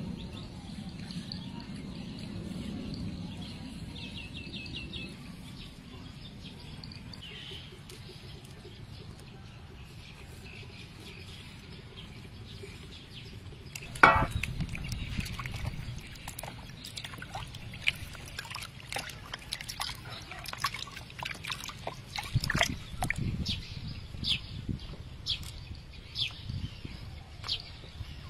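Outdoor rural background with faint bird chirps, then about halfway a sudden loud hit, followed by water sloshing and splashing with many short sharp clicks as raw chicken pieces are washed in a bowl of water.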